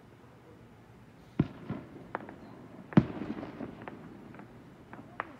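Fireworks going off: a sharp bang about a second and a half in, a couple of smaller pops, then the loudest bang about three seconds in, trailing off in a rumble. A last faint pop comes near the end.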